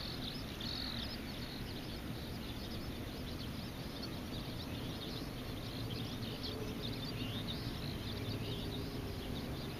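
Small birds chirping and twittering, many short high calls scattered throughout, over a steady low rumble of outdoor background noise.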